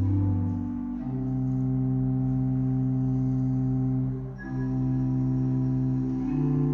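Slow instrumental music of sustained, held chords over a low bass note, the chord changing about a second in, again at about four and a half seconds, and near the end.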